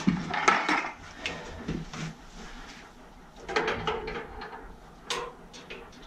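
Work clatter: scattered knocks, clanks and scrapes of things being handled, with two short rushes of noise, one in the first second and one about three and a half seconds in.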